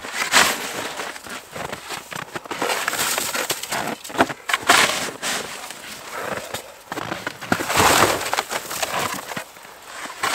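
Snow crunching in irregular bursts as someone moves and works in it by hand and underfoot.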